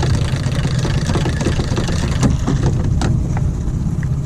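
Boat's outboard motor running steadily at trolling speed, a low hum, with a crackly hiss over it that eases about three seconds in.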